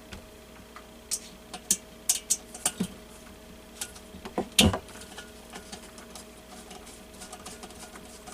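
Irregular small clicks and taps of an Allen key and metal parts being worked while a diesel heater is taken apart. The clicks come in a quick scatter over the first few seconds, with the loudest about four and a half seconds in, then thin out to faint ticking.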